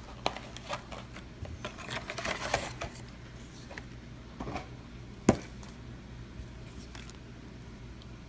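Handling and opening a card-game structure deck's packaging: scattered crinkles and light clicks, a dense run of rustling about two seconds in, and one sharp click a little past five seconds.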